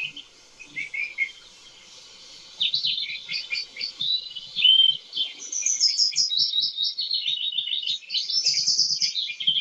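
Small birds chirping: a few short chirps about a second in, then fast, dense twittering from about two and a half seconds on.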